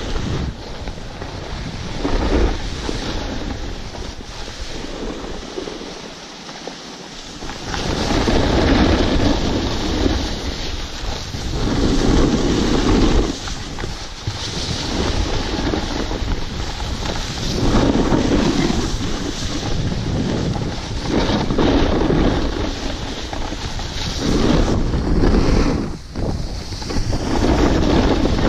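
Wind rushing over an action camera's microphone and edges scraping over packed snow during a fast run down a ski slope. The rush rises and falls every few seconds, easing off briefly a few seconds in before building again.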